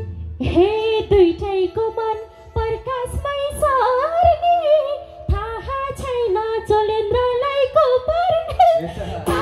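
A woman singing a Nepali folk (dohori) phrase unaccompanied into a microphone, her voice bending through ornamented, drawn-out notes. The band comes back in at the very end.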